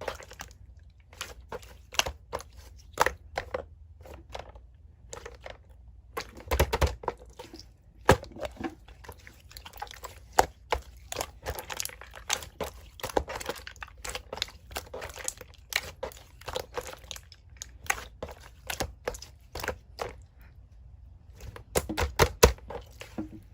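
A tangerine being handled, peeled and eaten: irregular crackling, soft tearing and chewing sounds with many small sharp clicks.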